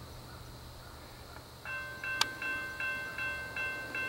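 Railroad grade-crossing warning bell starting up about two seconds in: an electronic ringing tone struck over and over, about two and a half times a second. A single sharp click comes just after it starts.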